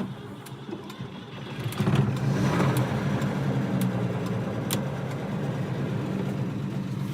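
Volvo 164's worn B30 straight-six engine running. About two seconds in it gets louder, as if revved or put under load, then holds a steady note.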